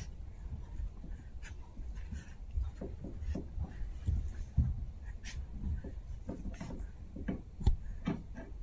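Two Chihuahua puppies playing and scuffling on carpet: irregular scratching and patter of small paws with bumps and rustles of plush and rope toys, and one louder knock about three-quarters of the way through.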